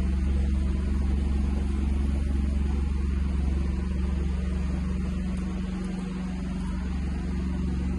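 Steady low droning hum over an even hiss, unchanging throughout.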